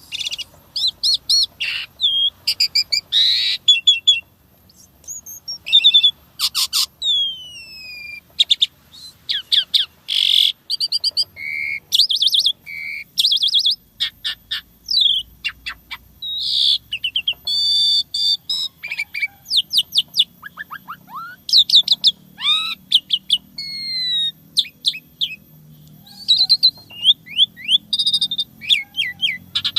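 Jalak suren (pied starling) singing a long, varied song of whistles, chirps, falling slurs and rapid trills, one phrase after another with barely a pause.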